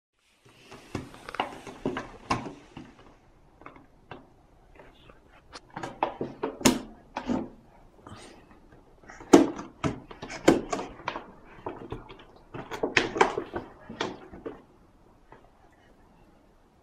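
A large empty plastic water bottle being grabbed, pushed and knocked about by a baby: irregular crackles, pops and knocks of thin plastic, coming in bursts with short pauses.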